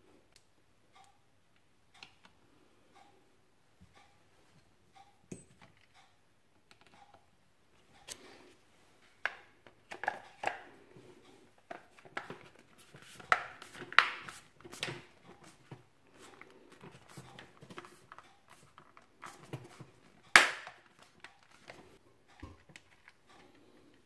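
A GHD hair dryer's plastic housing being put back together by hand: irregular clicks, knocks and rattles of the casing parts and handle being handled and pressed into place, busiest in the middle, with one sharp knock a few seconds before the end. Faint ticks about once a second run through the first few seconds.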